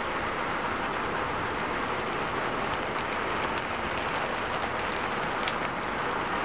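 Heavy rain falling, a steady hiss, with a few sharp drip ticks in the middle.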